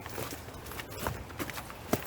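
Footsteps on a forest footpath: irregular crunching steps, with one sharper knock just before the end.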